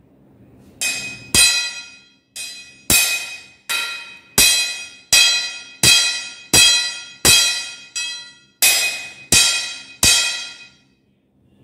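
A small hammer strikes a heavy steel digging bar again and again, about fourteen blows at roughly three every two seconds. Each blow leaves the bar ringing with a clear metallic tone that dies away before the next strike.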